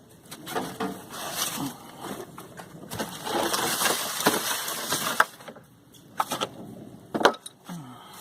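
Handling noise: rustling and scraping with scattered clicks and knocks, the loudest knock near the end.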